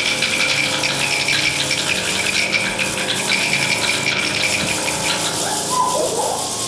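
Stage sound score: a dense, steady rattling texture over held tones, with a wavering pitched sound coming in near the end.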